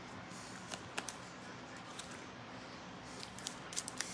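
Faint clicks and light ticks of trading cards and pack wrappers being handled, a few around one second in and a quick cluster near the end.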